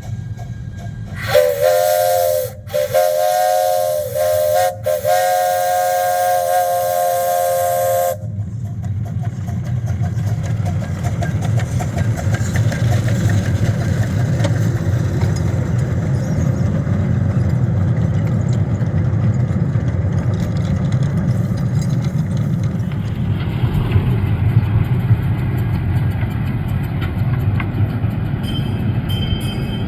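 Steam locomotive's chime whistle blown in three blasts, the last one longest, followed by the steady rumble of the train running.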